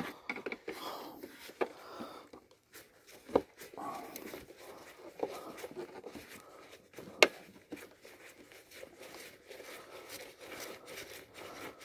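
Hand screwdriver turning out screws from a vacuum cleaner's plastic housing: scattered small clicks, scrapes and knocks of tool on plastic. The sharpest clicks come about three and a half and seven seconds in.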